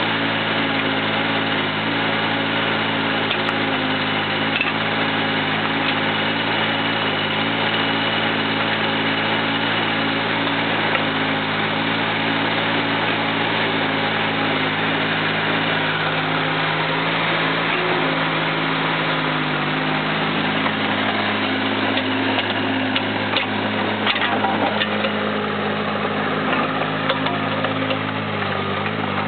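Caterpillar 301.5 mini excavator's diesel engine running steadily as the hydraulics work the boom, arm and bucket. The engine note shifts in the middle, and a few short knocks come near the end.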